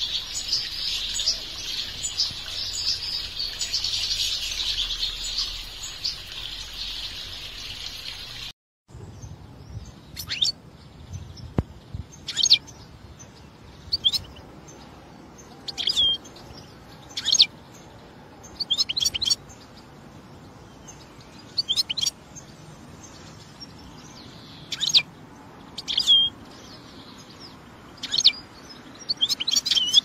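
European goldfinches twittering in a dense, continuous chorus for the first several seconds. After a brief dropout, separate short finch calls follow every second or two, each a quick downward-sweeping note, some in quick clusters of several.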